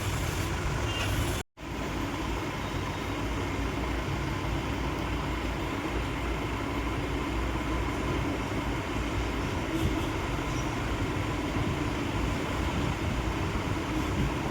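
Steady low mechanical rumble with a few faint steady tones, cut off completely for a split second about one and a half seconds in.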